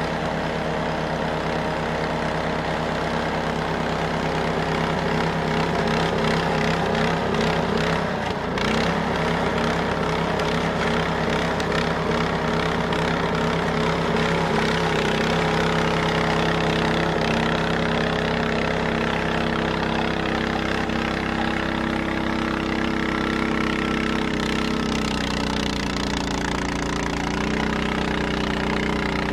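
Large Honda snowblower's four-stroke engine running steadily, with a brief dip about eight seconds in and its pitch settling a little lower near the end.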